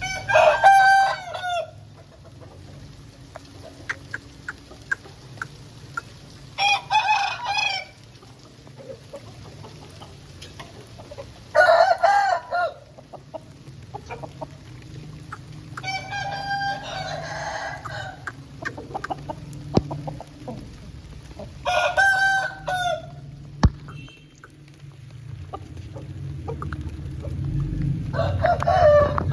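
Aseel rooster crowing six times, each crow about a second long, spaced roughly five to six seconds apart, over a low steady rumble that grows louder near the end.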